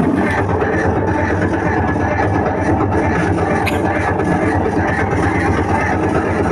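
Paudio 2226 bass speaker driven loud by a 200-watt subwoofer amplifier board, playing music with a heavy low end.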